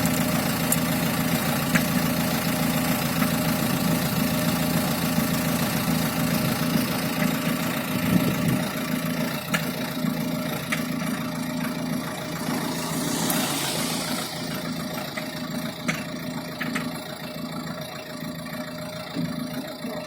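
Small diesel engine idling with a knock, the strange sound the owner is recording. It runs steadily, with a few sharp clicks over it, and grows gradually quieter in the second half.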